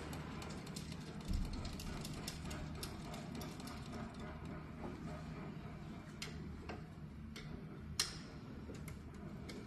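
Irregular small metal clicks and taps as a fastener is worked by hand at a bracket under a metal frame, with a low thump about a second in and one sharper click near the end, over a steady low hum.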